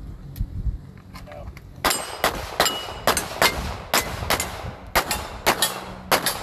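Rapid string of handgun shots, about a dozen in four seconds at roughly three a second, starting about two seconds in.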